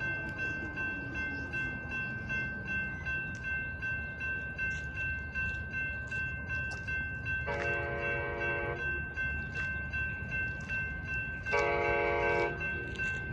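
Railroad crossing bell ringing steadily as the crossing gates come down. An approaching Amtrak passenger train sounds its horn twice, each blast about a second long, the second about four seconds after the first.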